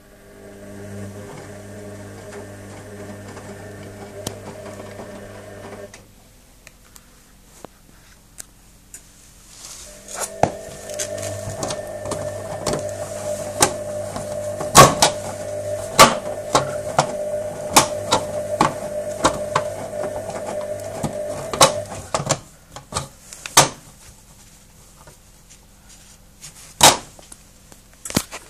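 Hoover Special Edition 1300 washing machine on its wash action: the drum motor hums for about six seconds, stops for a few seconds, then turns again for about twelve seconds with many sharp clicks and knocks from the tumbling load before stopping. A few loose clicks follow near the end.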